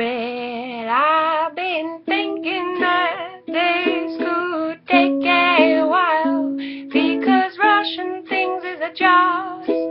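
A voice singing a song over a plucked-string accompaniment, the notes changing every second or so.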